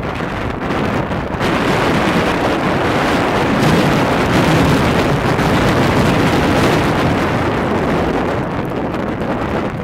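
Strong gusting wind buffeting the microphone, a dense rushing noise that swells about a second and a half in and eases slightly toward the end.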